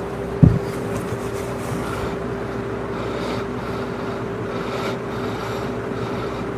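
A steady mechanical hum with a constant tone, and one short, loud, low thump about half a second in.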